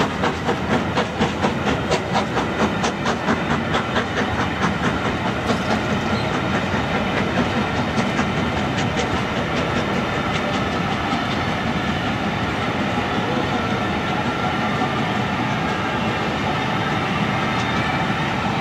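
Passenger coaches of a train rolling past at speed, the wheels clicking in a quick rhythm that fades over the first few seconds into a steady rumble and rush.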